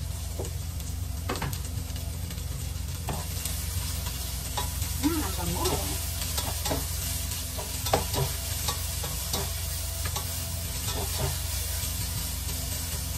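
Garlic and onion sizzling in hot oil in a stainless steel pan while a silicone spatula stirs them, with scattered scrapes and knocks against the pan over a steady low hum.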